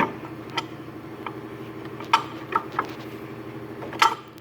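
Sharp metal clinks and knocks, about seven over four seconds, as a bolted-out engine mount is worked free and handled. A steady low motor hum runs underneath.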